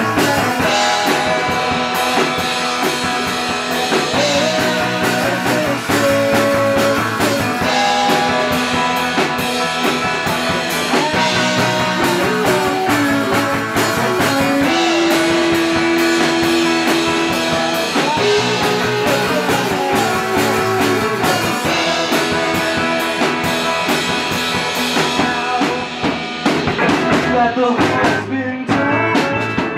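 A band playing live music, with a steady drum beat under held, bending melody notes, moving to a new chord near the end.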